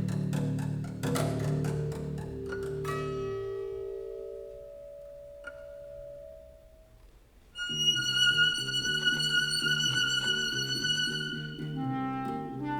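Contemporary chamber ensemble of clarinet, violin, double bass, guitar and piano playing. A cluster of struck and plucked notes with low held tones opens, and held notes then thin out and fade almost to quiet. About seven and a half seconds in comes a sudden loud entry: a long high held note over fast repeated low notes.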